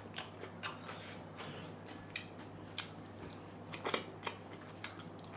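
A person eating mutton curry and fried rice by hand, with quiet chewing and a scattering of small sharp mouth clicks as meat is bitten off the bone.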